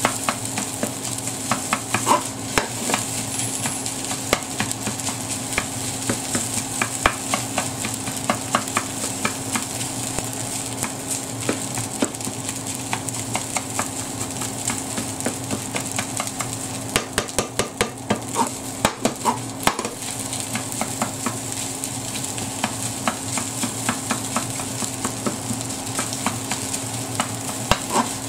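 Fried rice sizzling in a frying pan while a spatula stirs and scrapes through it, with frequent clicks and taps of the spatula against the pan, clustering about two-thirds of the way in.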